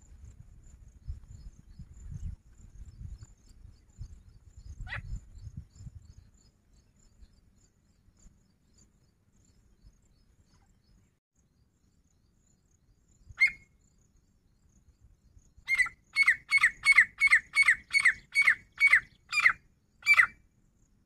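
Grey francolin calling: a lone call about five seconds in and another a few seconds before the end, then a fast run of about a dozen loud, sharp repeated notes, spacing out at the close. A low rumble in the first few seconds.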